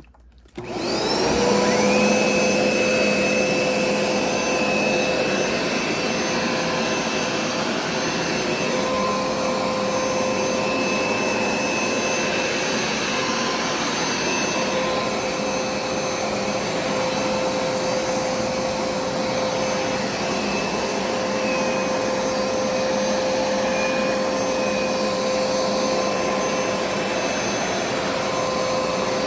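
Hoover SmartWash carpet cleaner switched on about half a second in, its motor whine rising over about a second, then running steadily with an even suction rush and a high whine.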